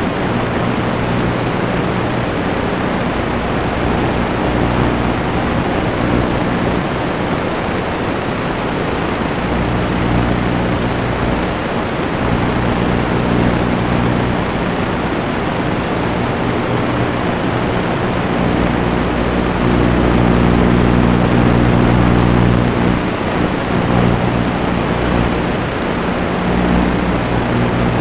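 Steady loud hiss of static with a low, multi-pitched hum that fades in and out, loudest about two-thirds of the way through: the empty audio channel of an analog FPV video link recorded by the goggles' DVR.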